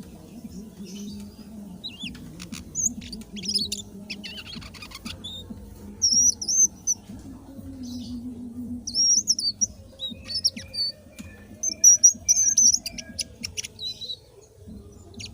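Indigo flycatcher (sikatan ninon) singing vigorously: bursts of high, quick warbling and chirping phrases, several times through, over a faint low hum.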